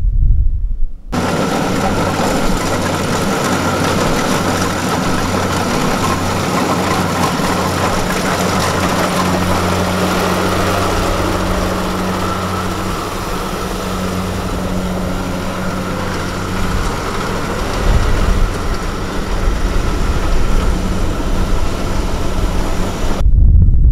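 Farm tractor's diesel engine running steadily at an even speed. It starts abruptly about a second in and cuts off abruptly just before the end.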